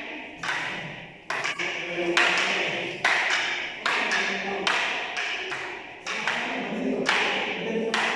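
A series of sharp strikes, a little more than one a second, each ringing out with a long echo in a reverberant room.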